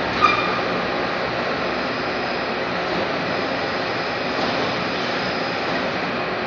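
Steady industrial din of a steel pipe factory floor, with a single short metallic clink that rings briefly about a quarter second in.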